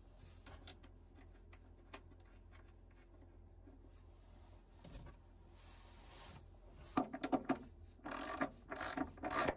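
Socket ratchet clicking in repeated strokes from about seven seconds in, as a stainless nut is run down onto a rudder gudgeon bolt through the metal backing bar. Before that, faint small clicks and rubbing as the nut is set on by hand.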